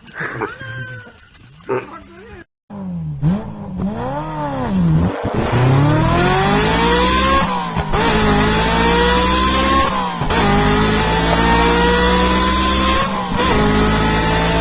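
Car engine accelerating hard through the gears: its pitch climbs, drops back at each shift, three times, and climbs again, over road and wind noise.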